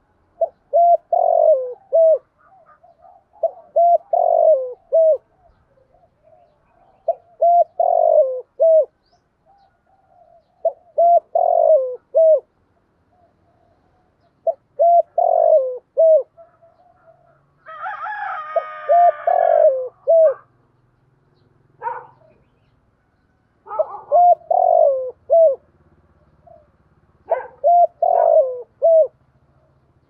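Spotted dove cooing its song, a short phrase of several low coos repeated about every three and a half seconds, used as a lure call for wild doves. Just past the middle, a harsher, higher call overlaps one phrase.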